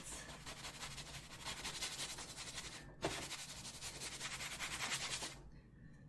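A large flat paintbrush scrubbing paint across a stretched canvas in quick, rapid strokes to blend it out. The scrubbing breaks off briefly about three seconds in, resumes, and stops about a second before the end.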